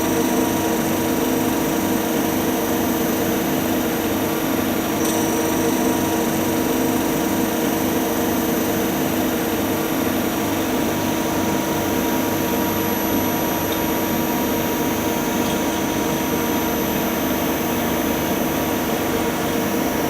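Lathe running steadily, a constant hum with high-pitched whines over a machining hiss, as it turns with a turning-tool holder.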